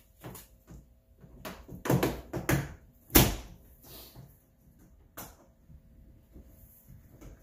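Hood of a Kawasaki Mule Pro DX utility vehicle being set in place and pressed down into its clips: a cluster of knocks about two seconds in, a loud snap a little after three seconds, and a lighter click about five seconds in.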